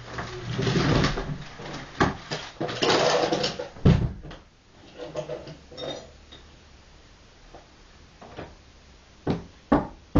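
Newspaper rustling as it is folded and put away, with a couple of sharp knocks among it. This is followed by quieter handling and two more sharp knocks near the end.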